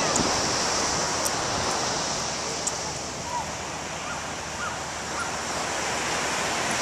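Ocean surf breaking and washing up the beach, a steady hiss of noise, with a few faint short chirps in the middle.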